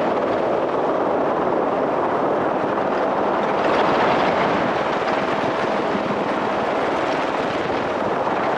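Helicopter running, a loud, steady, even rush of engine and rotor noise.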